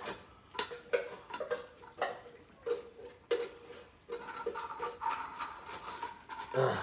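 A spoon clinking and scraping in a dish while canned cat food is mixed: a string of short, ringing clinks about every half second, then a couple of seconds of steadier scraping.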